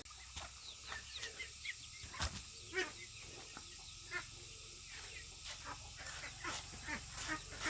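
Farm birds giving short, scattered calls, with a sharp click about two seconds in.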